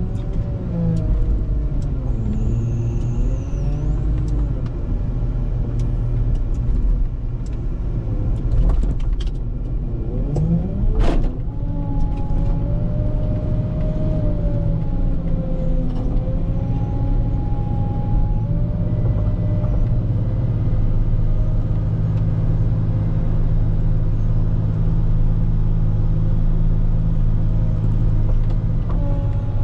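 Volvo L90H wheel loader's diesel engine running under load while plowing snow, its pitch rising and falling with the revs. There is a sharp knock about eleven seconds in.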